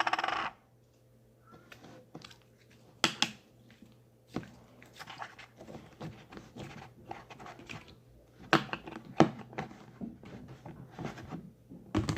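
Store-bought slime being squished and worked by hand, giving irregular wet clicks, pops and crackles, with a few louder snaps about three seconds in and again around eight to nine seconds in.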